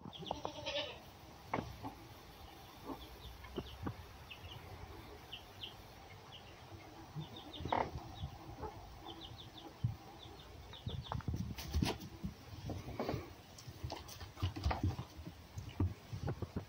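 Animal calls in a sawdust-floored pen: short high chirps come in small groups throughout, with two brief louder cries, one right at the start and one about 8 seconds in. Bumps and rustling in the bedding grow busier in the second half.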